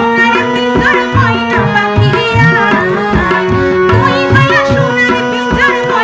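A woman sings a Chittagonian folk song with ornamented, wavering melody lines. Regular tabla strokes and held instrument notes accompany her.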